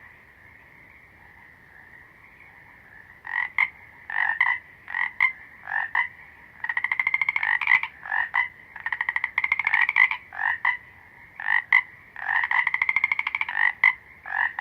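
Frogs calling. A faint steady chorus runs underneath, and from about three seconds in a near frog repeats short croaks mixed with longer, rapidly pulsed trills of about a second each.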